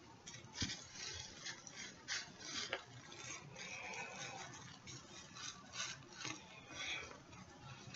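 Terry-cloth towel rustling as it is wrapped and twisted around the head: a run of short scratchy rubs and brushes.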